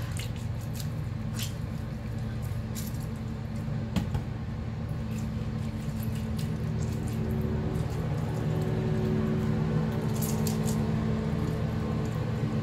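A lime half being juiced by twisting a wooden citrus reamer into it over a stainless steel bowl: faint wet squishing and a few small clicks. A steady low hum runs underneath and grows slightly louder in the second half.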